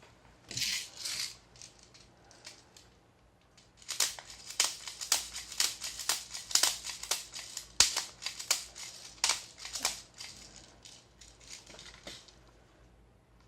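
Gas-blowback airsoft rifle being worked by hand: two short hisses, then an irregular run of sharp metallic clacks and rattles for about eight seconds.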